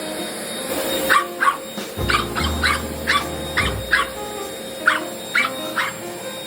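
A puppy barking with a run of about a dozen short, sharp yaps in quick irregular bursts, over background music.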